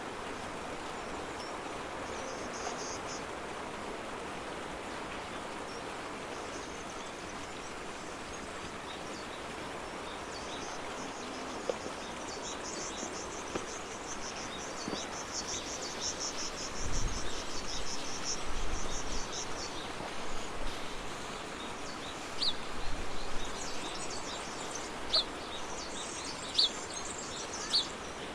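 Outdoor ambience: a steady background hiss with an insect trilling in rapid pulses for several seconds midway. Near the end come a few short, sharp high ticks, with some low thuds shortly before.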